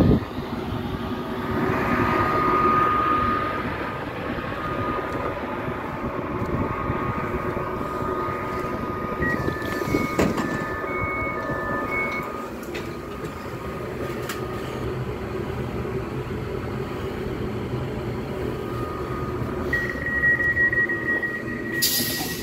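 A standing passenger train hums steadily. About ten seconds in, the carriage door gives a run of short two-tone beeps with a click. Near the end a steady high tone starts, and a short pneumatic hiss follows as the automatic glass sliding door into the coach opens.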